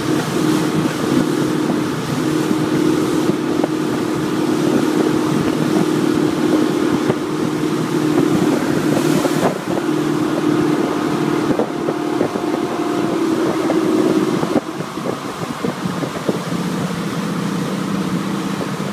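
Motorboat engine running steadily at towing speed, with water rushing in the churning wake and wind buffeting the microphone. Near the end the engine note drops lower and the sound gets slightly quieter.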